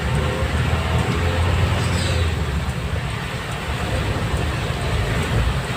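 Steady low rumble and hiss of a vehicle on the move through traffic.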